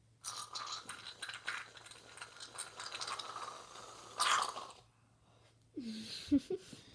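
Aerosol can of whipped cream spraying into the mouth with a crackling hiss for about four and a half seconds, ending in a louder burst. After it, a brief muffled voice sound and a thump.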